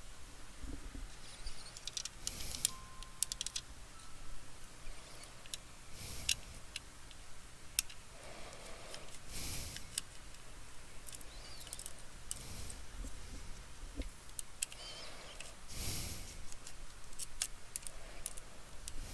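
Scattered small clicks, ticks and taps of hand tools, screws and parts on a laptop being taken apart, with a soft breath every few seconds.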